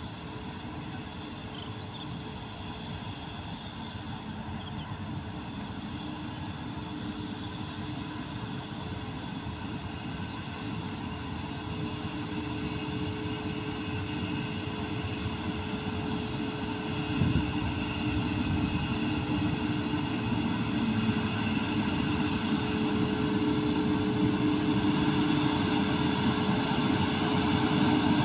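Twin WAG-9HC electric locomotives approaching at the head of a freight train: a steady hum with a layered electric whine that grows steadily louder as they near. A brief thump about two-thirds of the way through.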